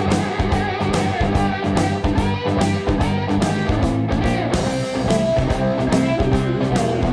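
Rock music with guitar and a steady, driving drum beat.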